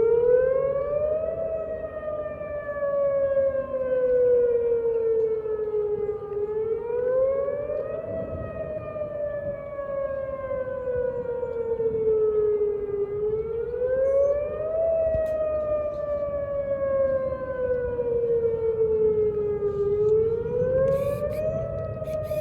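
Outdoor civil-defense warning siren wailing for a severe thunderstorm warning. Its pitch rises quickly over about a second and a half, then falls slowly over about five seconds, repeating roughly every seven seconds, about three times.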